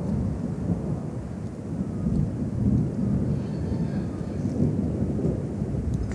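Rainstorm noise dominated by a continuous low rumble that swells and fades, with rain faintly beneath it.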